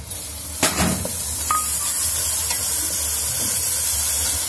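Pounded ginger and garlic sizzling as it drops into hot oil with fried onions in an aluminium kadhai, the hiss rising sharply just after the start and staying steady while a steel ladle stirs it. A sharp metal knock on the pan comes about half a second in.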